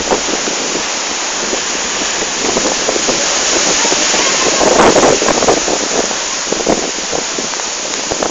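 Strong storm wind blowing hard, a dense loud rush with irregular gusts buffeting the microphone, swelling about five seconds in.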